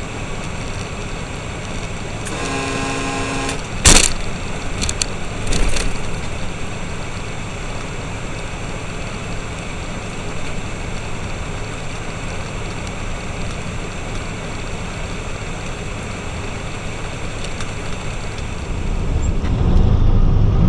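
Steady engine and road noise from a truck cab, heard through a dashcam. About two and a half seconds in, a horn sounds for about a second. Then a sharp, loud bang comes as the truck's bullbar strikes an animal on the road, followed a couple of seconds later by a smaller knock. Near the end the engine noise grows louder and deeper.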